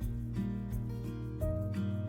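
Background instrumental music: held notes over a steady bass line, changing pitch every half second or so.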